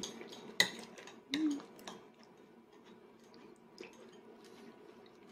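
A toddler eating bread dipped in stew: a sharp click about half a second in, a brief hummed "mm" about a second later, then faint small clicks of chewing and handling food.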